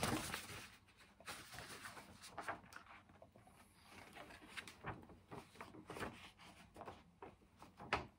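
Faint scattered rustles and small clicks in a quiet room, with a paper hymn sheet being handled near the end.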